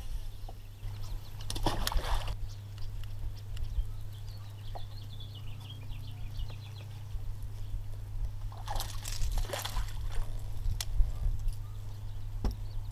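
Water splashing twice at the boat, about two seconds in and again around nine seconds in, over a steady low hum.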